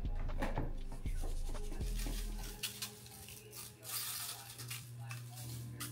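Seasoning shaken from a shaker can onto raw chicken thighs in a foil pan: a dry, scratchy sprinkling made of small ticks, with a louder hissing shake about four seconds in.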